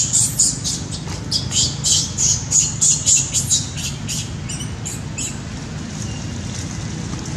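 A rapid series of short, high-pitched chirping animal calls, about three or four a second, stopping about five seconds in, over a steady low rumble.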